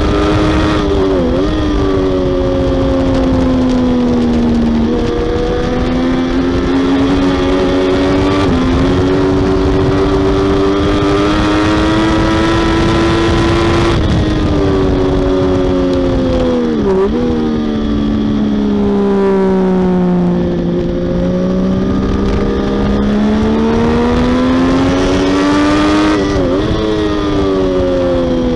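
Triumph Daytona 675R race bike's three-cylinder engine running hard at high revs. The engine note climbs steadily with several short sharp dips at the gear changes, and sinks lower for a few seconds past the middle before climbing again.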